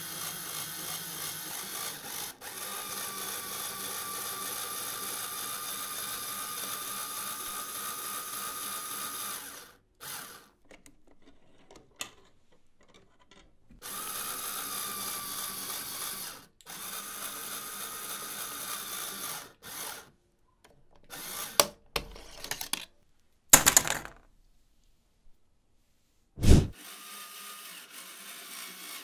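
LEGO Technic electric motors whirring through plastic gears as the wire-bending machine turns its bending head and feeds wire. They run in three stretches of a few seconds with short pauses between. In the last third come a few sharp clicks and knocks.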